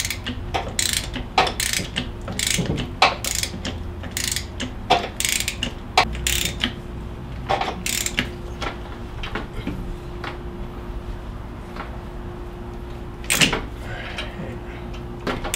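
Hand ratchet clicking in short runs, about two strokes a second and then sparser, as it turns the balancer installer tool's threaded shaft, pressing a harmonic damper onto the crankshaft snout.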